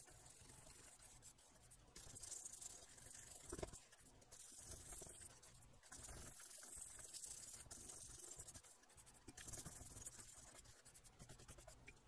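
Faint scratchy rubbing of a small bristle brush scrubbing the solder side of a freshly resoldered amplifier circuit board, in runs of strokes with short pauses and one sharp tick a few seconds in.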